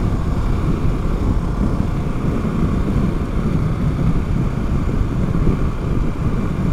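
Harley-Davidson Pan America Special's 1252 cc 60-degree V-twin running steadily at highway cruising speed, mixed with heavy wind and road noise on the rider's camera.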